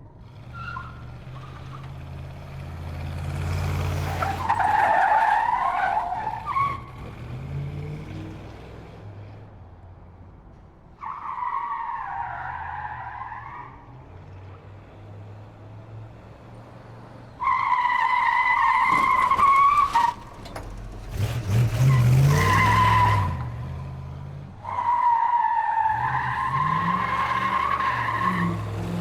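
Car tyres squealing in repeated skids, five screeches of a few seconds each, over a steady engine rumble, with loud rushing noise during the fourth screech.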